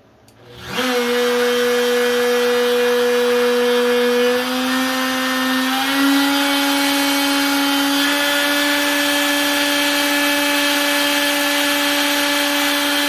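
Makita RT0701C compact router switched on and spinning up to a steady high whine, its pitch stepping up twice as it runs, during a test run after its loose speed-dial knob was glued down.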